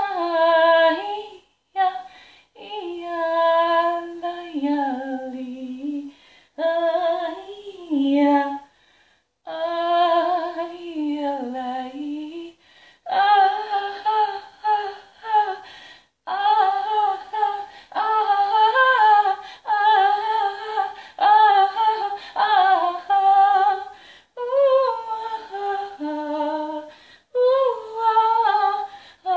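A woman singing an improvised, unaccompanied vocal line in short phrases with breaths between, her pitch sliding up and down with a light waver.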